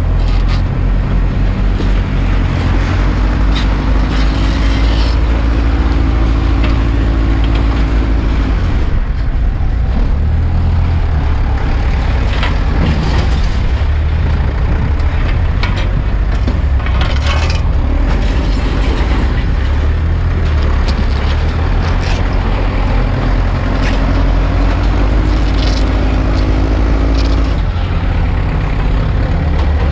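A heavy vehicle engine running with a steady low rumble. Twice its note rises and holds higher for several seconds, as if under load. Scattered sharp knocks sound over it.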